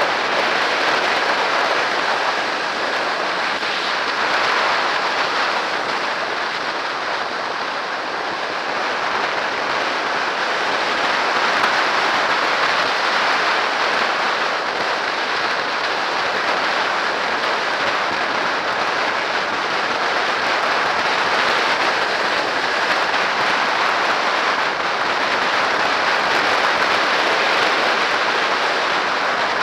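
Steady rush of wind and road noise on a motorcycle-mounted camera's microphone while riding at speed.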